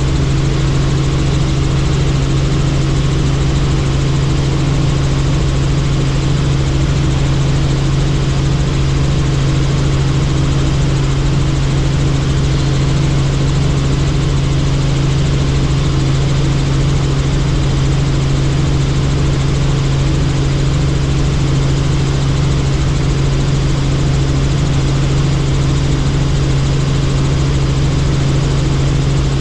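Helicopter in flight heard from on board: a loud, steady drone of rotor and engine with a constant low hum, unchanging throughout.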